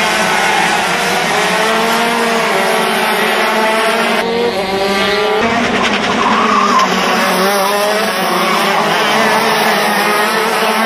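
Several racing karts' two-stroke engines running at high revs, their pitches rising and falling as they corner and pass. The sound changes abruptly a couple of times around the middle.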